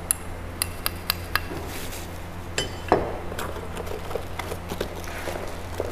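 Clicks and light knocks from handling a steel angle-grinder wheel guard and the packaging in a cardboard box: several sharp clicks in the first second and a half, a louder knock about three seconds in, then smaller ticks. A steady low hum runs underneath.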